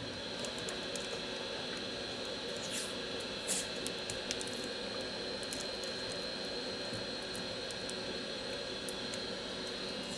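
Faint clicks and rustles of metal tweezers and gloved fingers handling a phone's camera flex cable and back-cover parts, over a steady background hum and hiss.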